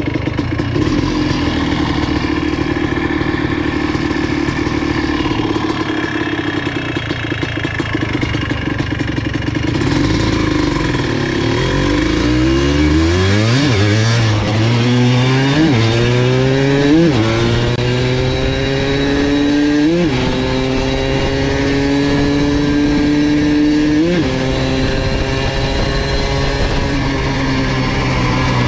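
Yamaha Blaster's single-cylinder two-stroke engine running at low revs for about the first ten seconds. It then pulls away and accelerates, its pitch climbing in steps as it shifts up through the gears, before holding a steady cruising note.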